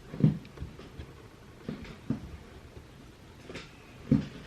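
A few soft, irregular knocks and taps: a measuring cup knocking against the mixing bowl as a cupful of flour is scooped and tipped in. The two loudest knocks come just after the start and near the end.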